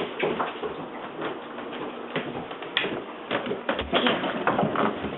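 Irregular clicks and scuffling from a puppy moving about, with no steady tone.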